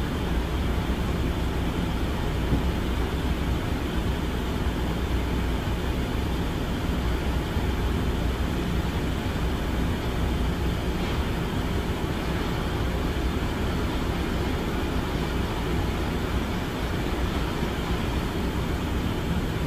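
A steady, unbroken low rumble with hiss, like a vehicle or machine running.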